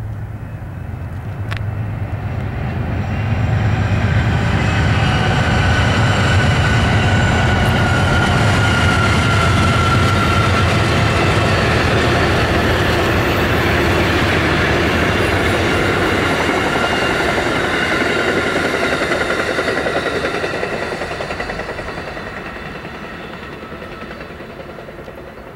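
Amtrak passenger train passing at speed behind two GE P42DC diesel locomotives. The locomotives' engine rumble builds over the first few seconds. Then comes a long, steady rush of the passenger cars' wheels on the rails, which fades away near the end as the train recedes.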